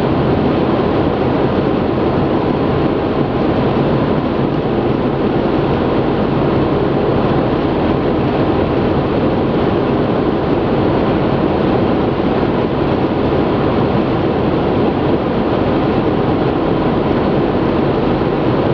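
Steady road noise inside a car cruising at motorway speed: tyre and wind noise with a low engine hum, unchanging throughout.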